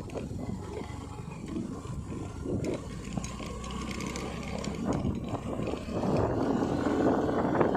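Wind rushing over the microphone with motorcycle engine and road noise while riding, growing louder about six seconds in.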